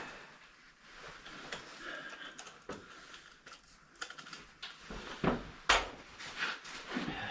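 Irregular clicks and knocks of metal parts being handled as a replacement furnace draft inducer motor is fitted back into place, with two louder knocks about five and six seconds in.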